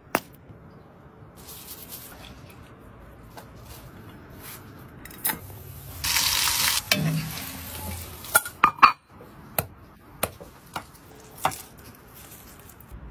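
Cooking sounds in quick succession: a brief burst of sizzling from a cast-iron skillet about six seconds in, then a run of sharp clicks and knocks of utensils against pans and dishes.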